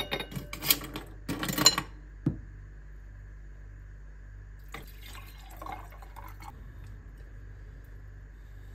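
Glass and ice clinking in the first two seconds. Then, about five seconds in, ginger drink is poured into a wine glass over ice for about two seconds, over a steady low hum.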